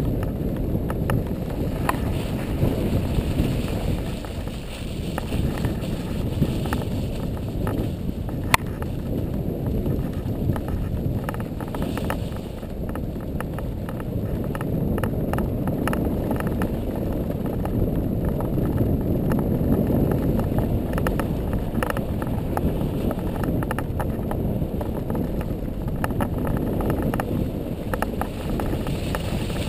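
Vehicle driving on a snow-covered track, mostly an ATV: a steady low rumble of engine and tyres, with wind buffeting the microphone and scattered clicks and knocks.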